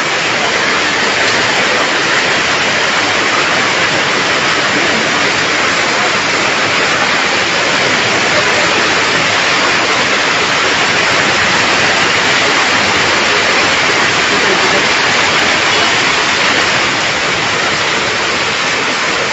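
Heavy rain pouring down onto a flooded street, a loud steady hiss.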